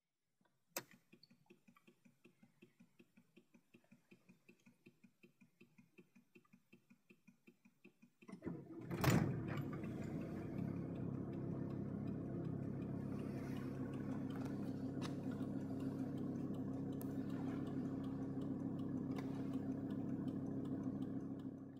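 Volvo 850 TDI's five-cylinder diesel engine being started: a click, several seconds of faint regular ticking, then the engine catches about eight seconds in and settles into a steady idle.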